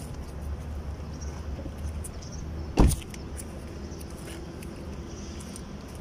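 A steady low rumble, with one loud knock about three seconds in.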